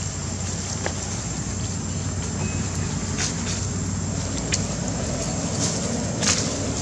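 A steady low rumble runs throughout. Dry leaves crackle sharply four or five times under the macaques as they shift about on the leaf litter.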